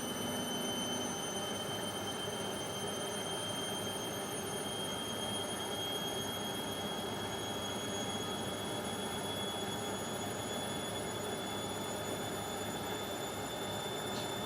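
Indesit washing machine on its spin cycle: a steady high motor whine that rises slowly in pitch over the rushing noise of the spinning drum, as the spin speeds up.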